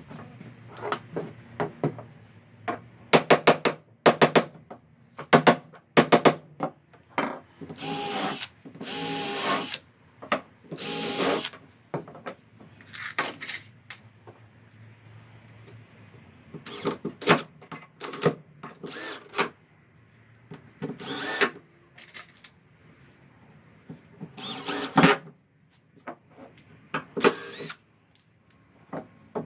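Cordless drill running in repeated bursts, most under a second and a few a second or two long, with short pauses between, as it bores holes into pine floorboards.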